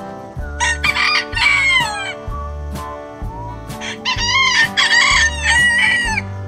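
Rooster crowing twice, the first call about half a second in and the second, longer one about four seconds in, over background music with a steady beat.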